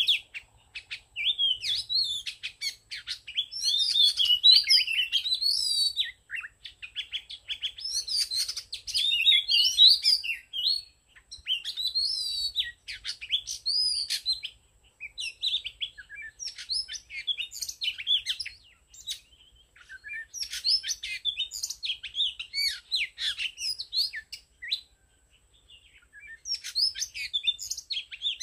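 Oriental magpie-robin singing: long bouts of rapid, varied whistled notes and phrases, broken by a few short pauses.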